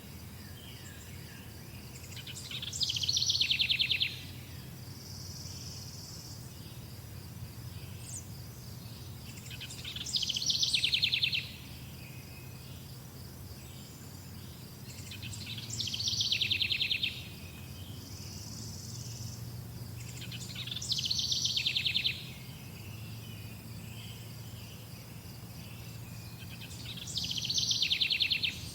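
A songbird repeating one song five times, about every five to six seconds: each a rapid trill of notes that falls in pitch over about a second and a half. Crickets chirp steadily underneath, over a low steady hum.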